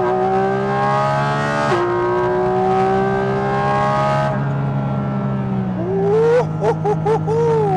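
Porsche 718 Cayman GT4 RS's 4.0-litre flat-six, breathing through a Fi-Exhaust valved exhaust with catless downpipe and the valves open, at full throttle. The revs climb, drop sharply at a quick upshift about two seconds in, and climb again before the driver lifts off. Near the end come several short rev blips, each rising and falling.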